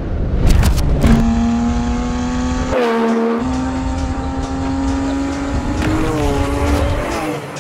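Porsche GT car's flat-six engine running hard at high revs. Its note holds mostly steady, dips briefly about three seconds in, climbs again near six seconds and falls away near the end. A few sharp cracks come near the start.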